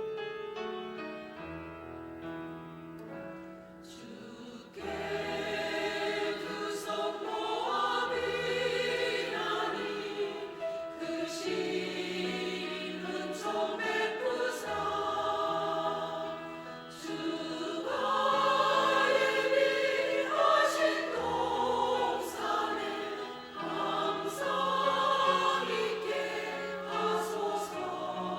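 A Korean church choir singing a hymn with piano accompaniment. The piano plays alone for about the first five seconds, then the choir comes in and sings to the end.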